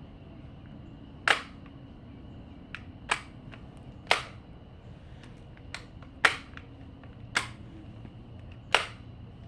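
About seven sharp mechanical clicks at irregular intervals from a toy or air gun being handled after it has run out of ammunition. A faint steady high tone sits underneath.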